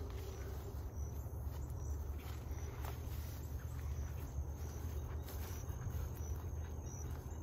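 Outdoor ambience: a steady low rumble on the microphone, with an insect making a faint short high chirp about every three-quarters of a second.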